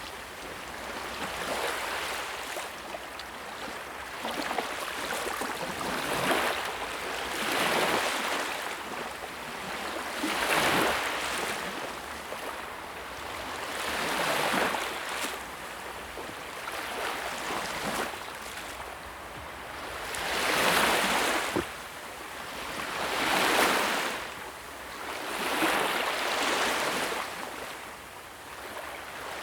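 Sea waves washing onto the shore, each surge of surf swelling and falling away, one every two to four seconds.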